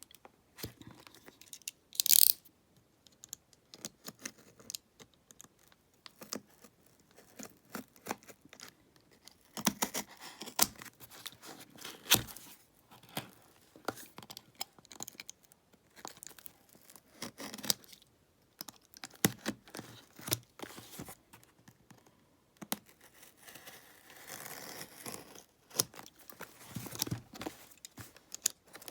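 A cardboard package being opened by hand: a short sharp rip of tape or cardboard about two seconds in, then scattered tearing, rustling of packing material, and small clicks and knocks of things being handled.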